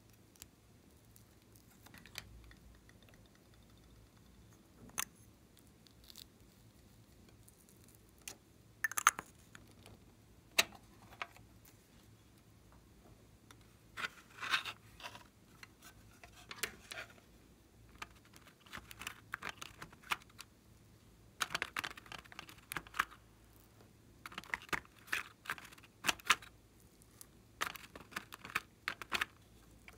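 Plastic clicks, taps and light scraping from toy makeup cases being handled and eyeshadow being scraped out with a plastic spatula. A few single clicks at first, then denser clusters from about halfway through.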